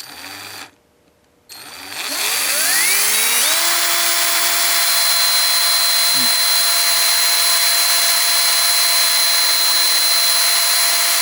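Craftsman 19.2-volt cordless drill motor, opened up for repair: a brief blip of the trigger, then it spins up with a rising whine and runs steadily at full speed. The owner questions the heavy sparking at its brushes, having suspected worn brushes or a faulty trigger.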